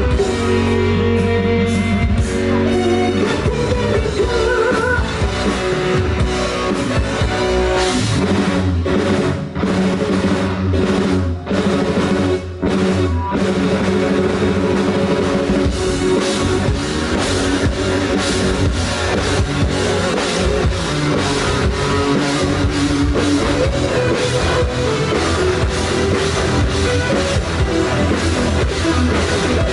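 A rock band playing an instrumental passage on drum kit and electric guitar, with a few short stops between about nine and thirteen seconds in.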